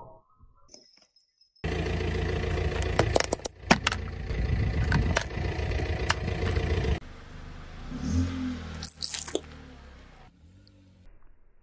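Car tyre rolling over gravel and crushing an object beneath it: loud crunching with several sharp cracks over a low engine rumble. It starts abruptly after a short near-silent gap and cuts off suddenly about seven seconds in, leaving quieter, softer sounds.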